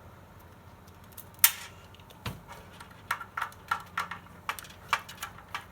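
Small sharp clicks and taps of tools and fingers working on a hard disk drive's metal casing while the tape and screws are being removed: one loud click, then a run of quick irregular clicks, about three a second.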